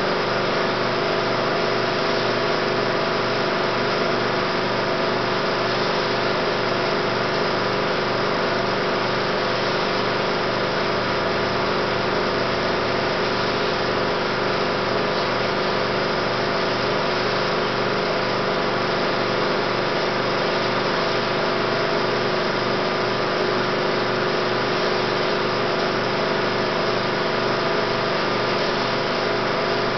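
16mm film projector running: a steady mechanical whir with an even hum that does not change.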